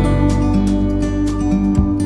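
Background music: a country-style song with strummed acoustic guitar, in an instrumental gap between sung lines.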